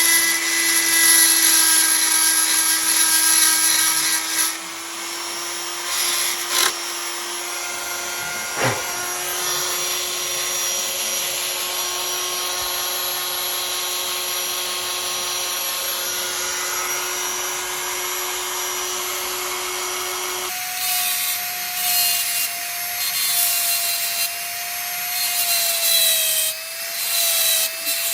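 Hand-held rotary tool with a burr deburring the sharp lead of a machined thread: a steady high motor whine with the scrape of the cutter on metal. About two-thirds of the way through it switches to a higher, wavering whine with intermittent scratching.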